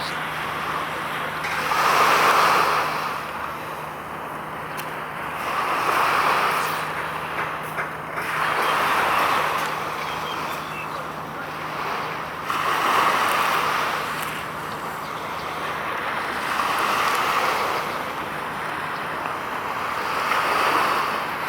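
Small waves breaking and washing ashore, six swells of surf noise about one every four seconds, over a steady low hum.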